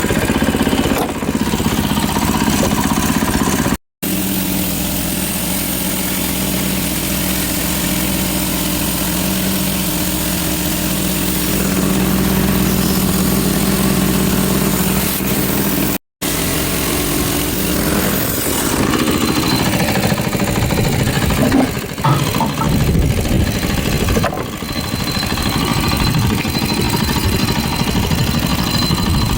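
Small sawmill's engine running steadily, broken by two brief dropouts.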